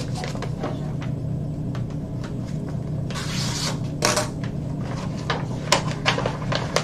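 Paper rustling and crinkling as a manila envelope is handled, opened and its papers pulled out, with a sharp crackle about four seconds in and more near the end. A steady low hum runs underneath.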